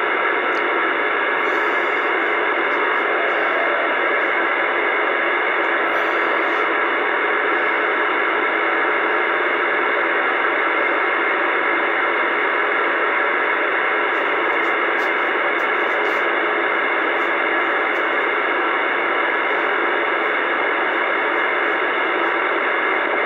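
Steady hiss of static from a CB radio receiver tuned to AM channel 28, with no signal standing out of the noise.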